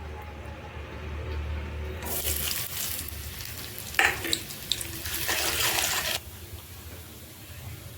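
Water running, with a few clinks, that starts about two seconds in and cuts off suddenly about six seconds in.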